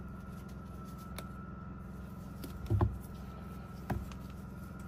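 Soft, rotted kawara egg-laying log being broken apart by hand: a few crumbly cracks and knocks, the loudest about three seconds in, over a steady low hum.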